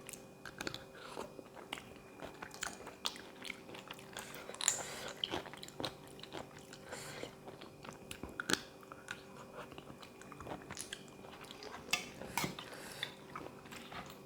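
Close-up eating: a person biting and chewing crunchy food, a spicy seafood papaya salad with raw vegetables, in irregular crisp crunches and wet mouth clicks.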